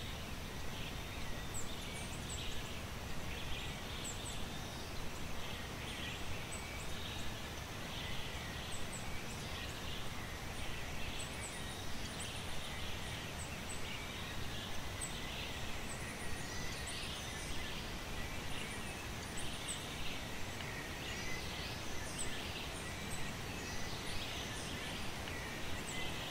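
Steady rain falling, with small birds chirping now and then.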